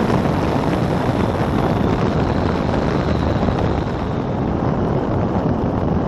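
Wind buffeting the microphone of a camera mounted on a Wolf Pitts Pro biplane, mixed with the rumble of the aircraft rolling along a dirt airstrip. The noise eases a little about four seconds in.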